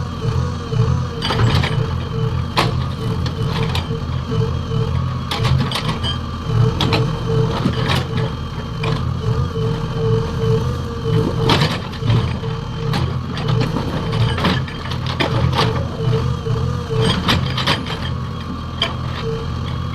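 JCB 3DX backhoe loader's diesel engine running under load while its hydraulic breaker hammers with a rapid pulsing beat, with irregular sharp knocks of the chisel on stone or concrete.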